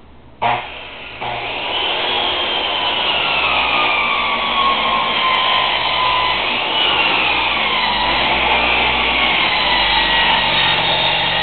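Old sidewinder circular saw with an 8¼-inch blade, run in a scarf jig, cutting a long bevelled scarf across the end of a plywood sheet. The motor starts about half a second in, then runs under load as a steady cutting noise with a whine that wavers up and down in pitch as the blade loads and eases.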